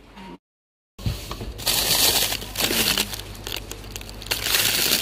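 Loud crinkling and rustling close to the microphone, coming in waves, after a half-second gap of complete silence near the start.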